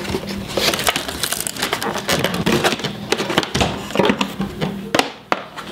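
Cardboard box and plastic packaging being handled and pulled open, a dense run of rustles, crackles and scrapes as a toy RC car is lifted out, with a sharp knock about five seconds in.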